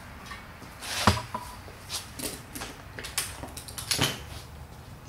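Metal tools clinking and knocking as they are handled and picked up from a tool tray, with a sharp clink about a second in the loudest and a few lighter knocks after it.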